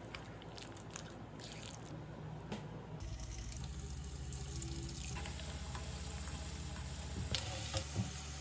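Wet clicking of a silicone spatula mixing egg-and-flour-coated chicken in a bowl, then about three seconds in the coated chicken pieces sizzle steadily in hot oil in a wok. A few sharp knocks near the end as a wire spider strainer scoops the fried pieces out.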